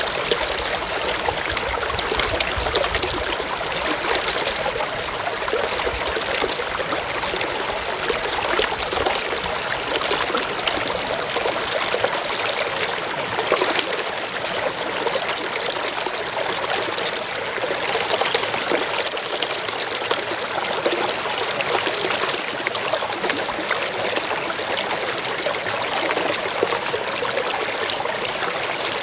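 Water flowing and trickling steadily, an even rushing splash with no pauses.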